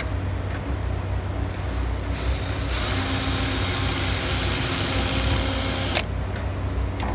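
Power drill drilling out a rivet in an aircraft fairing panel. The cutting noise, with a steady high whine, builds about two seconds in, runs evenly and cuts off suddenly about six seconds in, over a steady low hum. A few light clicks follow.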